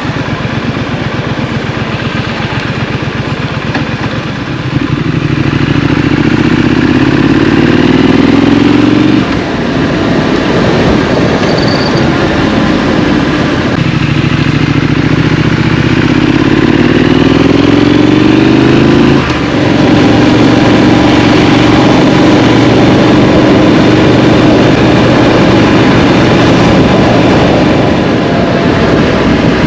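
Scrambler motorcycle engine. It runs low and pulsing at first, then pulls away with its pitch rising under throttle about five seconds in, and drops suddenly about nine seconds in. It rises again from about fourteen seconds, drops off once more, then holds a steady cruising note.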